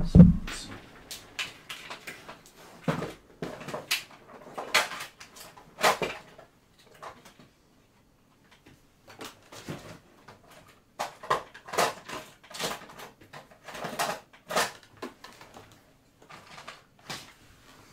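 Small hard parts being handled on a workbench: irregular clicks, taps and rustling, with a lull of a couple of seconds just before halfway, then a busier run of clicks.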